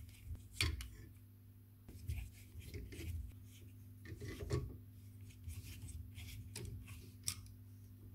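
Hex key turning and loosening small bolts on a 3D printer's hot-end cover: irregular clicks and scraping of metal tool on bolt, with the cover being handled.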